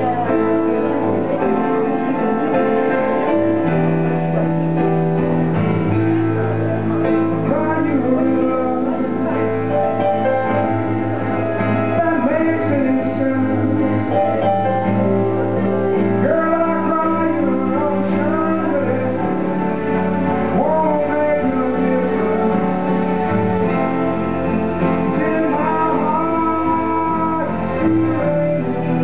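A woman singing a slow jazz song, accompanied by acoustic guitar and a Roland FP-4 digital piano, with sustained low notes under the vocal line.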